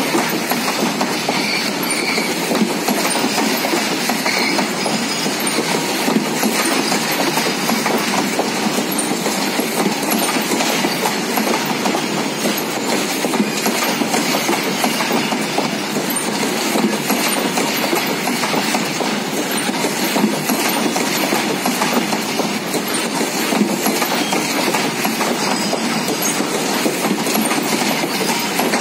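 Freight train of covered boxcars rolling steadily past close by: a continuous rumble with the dense clatter of steel wheels running over the rails, even in level throughout.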